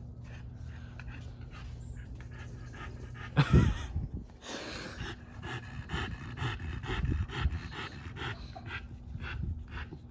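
French bulldog panting steadily, about three breaths a second, with one brief louder noise about three and a half seconds in.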